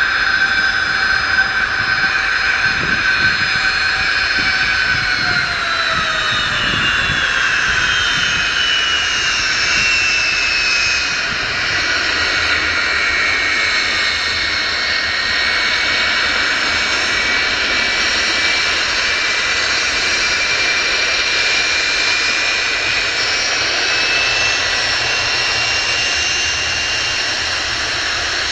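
Jet airliner's twin turbofan engines: a roar with whining tones that drop in pitch between about five and ten seconds in, then a steady roar as the aircraft rolls for take-off, with a faint tone edging up near the end.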